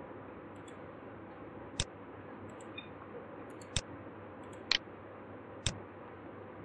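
Computer mouse clicking: four sharp clicks about a second apart, the third a quick double click, over a faint steady hiss.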